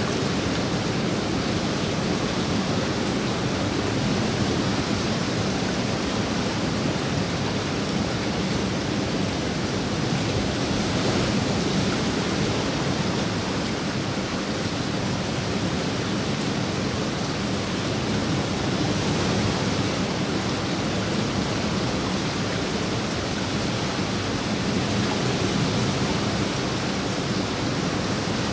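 Steady rain falling on the surface of a swimming pool and the surrounding foliage, an even hiss without breaks.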